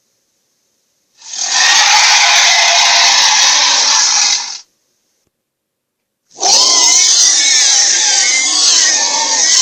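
Two designed dragon sound effects: first a harsh, rasping rush of about three and a half seconds that cuts off, then, after a short silence, a longer growl with a wavering pitch running through the rasp.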